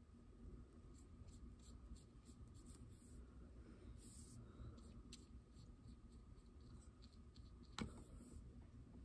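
Faint, scratchy strokes of a paintbrush dragging acrylic paint across paper, with one sharp tap nearly eight seconds in.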